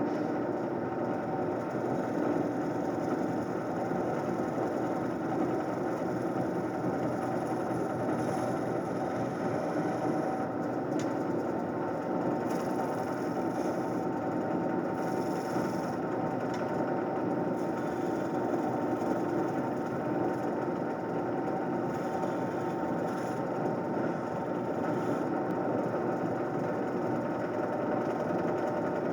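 Wood lathe running steadily with a mahogany blank spinning on it, the motor giving an even hum.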